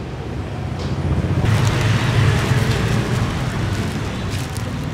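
Steady low rumble of street traffic, with a louder hiss from about a second and a half in. Near the end come a few short crinkles of a plastic sheet as a gloved hand presses a banana flat.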